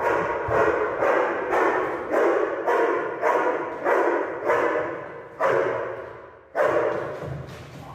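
A young dog barking repeatedly and steadily, about one bark every two thirds of a second, with a pause before a last bark near the end. The barks echo in a bare room. It is the bark-and-hold indication of a protection-training search, the dog barking at the helper it has found.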